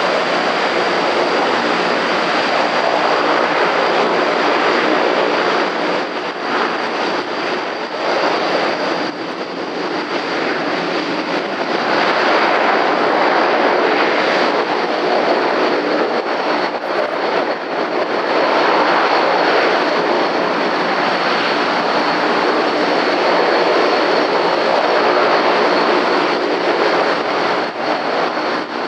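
Antonov An-12's four Ivchenko AI-20 turboprop engines running as it taxis: a loud, steady drone of engines and propellers with a constant high whine on one pitch, the level sagging briefly a few times.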